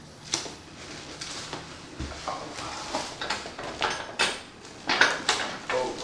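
Bubble wrap and a cardboard box being handled and pulled apart: irregular crinkling, rustling and scraping, with the loudest crackles about four and five seconds in.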